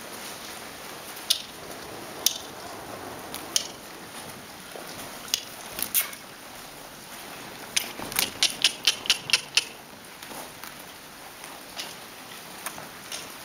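Sharp clicks, first a few scattered ones and then a quick run of about eight clicks near the middle, over a steady faint hiss.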